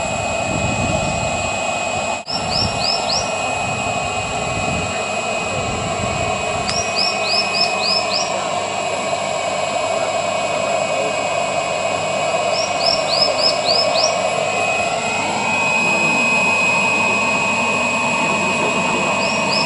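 Steady mechanical drone, with a thin high whine joining about three quarters of the way through. Over it a bird sings a short phrase of four or five quick descending notes, repeated about every five to six seconds.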